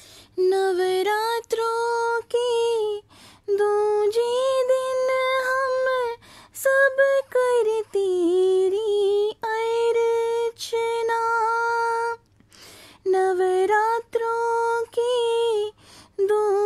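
A woman singing a Hindi devotional bhajan to the goddess Brahmacharini, in short phrases with brief pauses between them.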